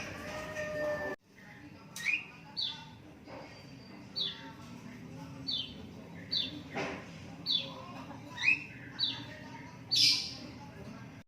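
Young lovebird chick chirping: a series of short, high chirps, each falling in pitch, about one every half second to a second.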